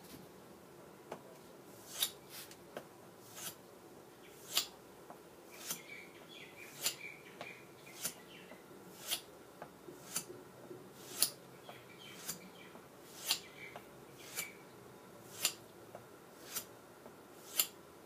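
Opinel No. 10 carbon-steel knife blade being swiped across 1200-grit sandpaper, one short rasping stroke about every second, in an even sharpening rhythm.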